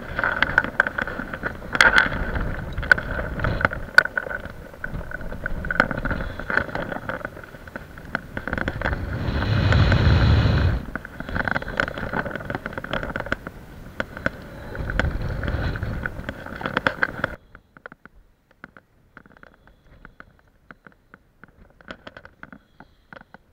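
Wind buffeting the microphone in gusts, with a deep rumble that swells and eases and scattered clicks over it. About two-thirds of the way through it cuts off suddenly, leaving only faint clicks.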